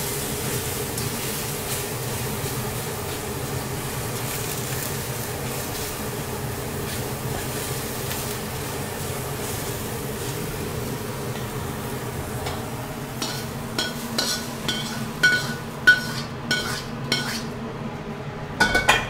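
Sliced shiitake mushrooms stir-frying in a wok, a steady sizzle under the spatula. In the last few seconds a metal utensil knocks and scrapes against the wok and a steel plate in a run of sharp, ringing clinks as the mushrooms are scraped out.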